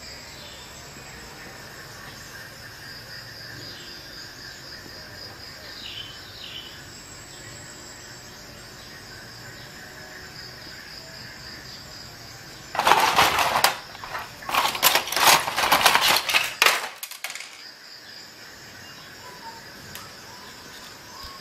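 Crickets chirping steadily. About thirteen seconds in, a loud burst of clattering knocks lasts about four seconds.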